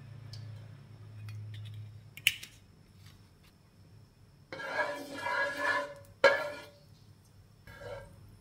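Kitchen utensils handled against a nonstick wok: a sharp knock about two seconds in, a longer scraping, clattering stretch a little after the middle, then a loud sharp knock, with a ladle moving in the oil near the end.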